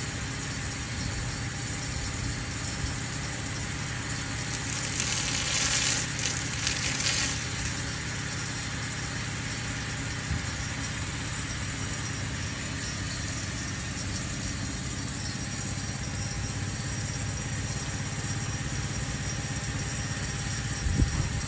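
Steady hum of an engine-driven irrigation pump feeding a rain-gun sprinkler, with the hiss of the sprinkler's water jet on top. The spray gets louder for about two seconds, around five seconds in, and there is a short knock near the end.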